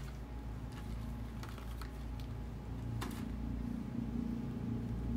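Faint clicks and taps of cardboard cartons and plastic bottles being lifted out of a gift box and handled, a few scattered knocks with the clearest about three seconds in, over a steady low hum.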